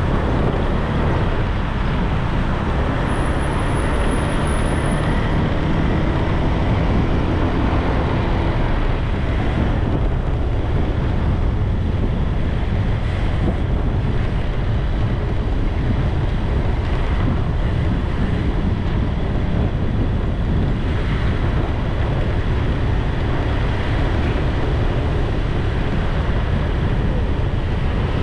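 Steady rush of wind and road noise from a motorbike being ridden along a road, with the engine's low hum underneath.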